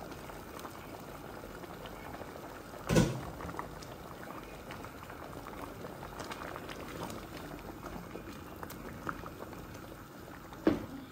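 Thick breadfruit porridge bubbling and popping at a boil in a pot, stirred with a wooden spoon. One loud knock about three seconds in and another near the end.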